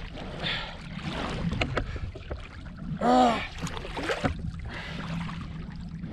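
Wind and water noise around a fishing kayak with scattered sharp clicks and knocks, and a man's short strained shout about three seconds in as he fights a big fish on the rod.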